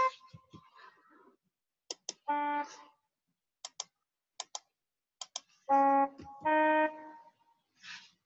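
Computer mouse clicking, mostly in quick double-clicks, between short organ notes played back by the Sibelius notation software as notes are entered. The notes are held steady for about half a second each: one near the start and three more later, the last two close together.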